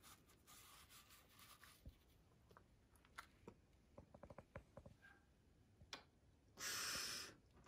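Faint scratching and light clicks from a Miniature Schnauzer puppy's paws and claws on a mat as it shifts about, with one brief louder rush of noise near the end.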